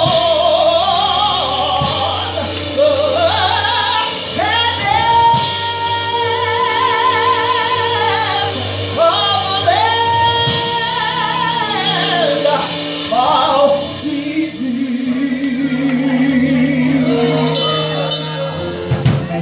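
A woman singing a gospel solo through a microphone over the church band's accompaniment, holding long notes with vibrato; in the last few seconds the melody moves lower.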